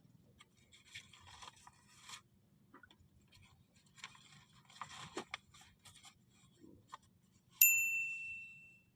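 Rustling, scraping handling noises, then a single bright metallic ding near the end that rings out and fades over about a second.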